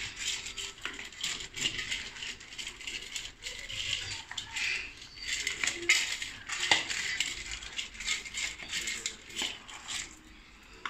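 Dry kibble clicking and rattling against a stainless-steel dog bowl as two puppies eat from it and a hand stirs through the food. The sound is a busy run of small clinks that dies away near the end.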